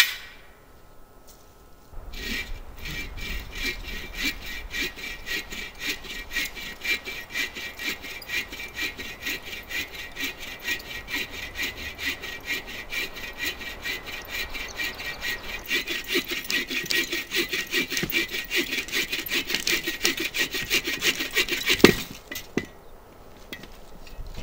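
AGAWA Boreal24 folding bow saw cutting through a dry, dead log with quick, even push-and-pull strokes, getting louder in the last few seconds. It starts after a single click and the strokes stop with a sharp crack.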